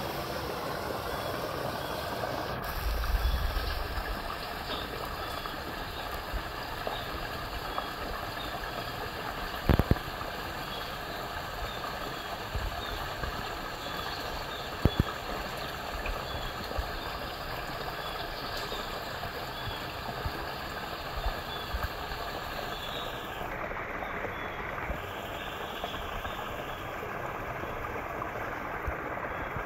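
Muddy floodwater pouring steadily out of a concrete culvert pipe into a pool as it drains through the unblocked culvert. Faint short chirps repeat over the rushing water, and a couple of sharp clicks come about a third and halfway through.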